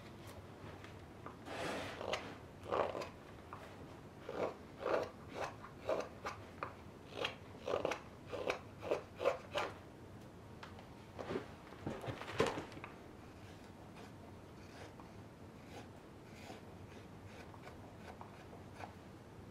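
Carving knife shaving raw birch: a series of short, crisp cuts about two a second. The cuts stop about two-thirds of the way through, leaving only a few faint light ticks.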